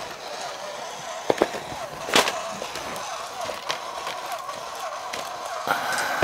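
A small motor whining with a regular wavering pitch, with a few sharp clacks and knocks, the loudest about two seconds in.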